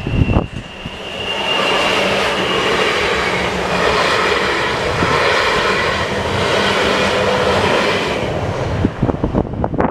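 Train passing over a level crossing: the rumble of wheels on rail builds about a second in, holds steady for several seconds, then drops away near the end. Wind buffets the microphone at the start and near the end.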